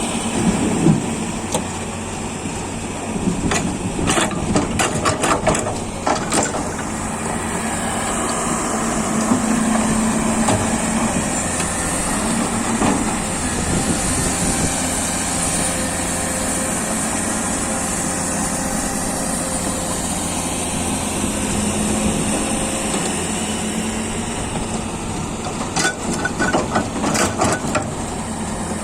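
Komatsu PC200 excavator's diesel engine running steadily as it works. Two spells of clattering knocks come over it, a few seconds in and again near the end.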